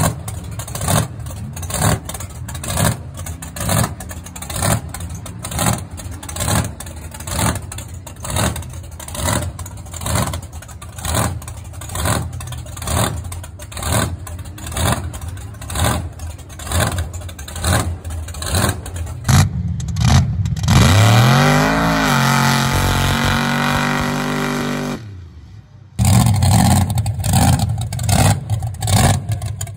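Mega truck engine running with a heavy, rhythmic surge about one and a half times a second. About twenty seconds in it is revved up hard and held high for several seconds before dropping away. The rhythmic surging returns near the end.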